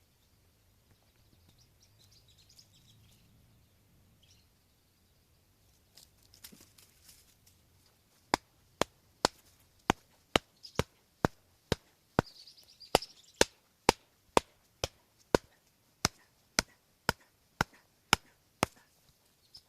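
A steady run of sharp knocks, about two a second, starting about eight seconds in, like a tool striking wood; faint bird chirps come before them.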